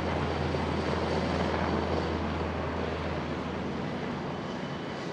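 Airbus EC225 helicopter's twin-turbine and rotor noise, a steady low hum and rush that slowly fades as the helicopter draws away after takeoff.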